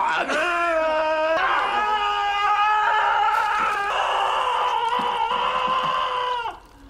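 A man wailing in anguish: one long, high, howling cry that wavers in pitch and breaks off a little before the end.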